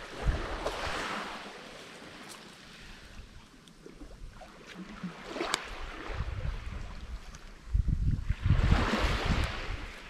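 Wind buffeting the microphone in heavy gusts, loudest near the end, over a hiss of surf that swells twice. A few sharp clicks, the clearest just past the middle.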